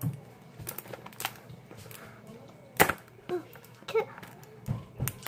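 Scissors snipping plastic toy packaging: a handful of sharp clicks about a second apart, the loudest about three seconds in.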